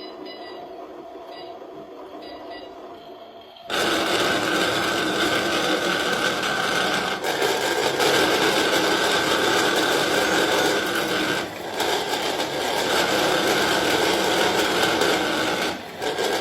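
A washing machine starts abruptly about four seconds in and runs loudly and steadily, with a noisy motor-and-drum sound that dips briefly twice. Before that there is only a fainter steady hum.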